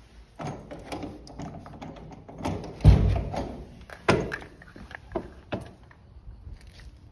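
A door with a deadbolt and knob being unlocked and pulled open: a run of clicks and knocks, with a heavy thump about three seconds in and another sharp click about a second later.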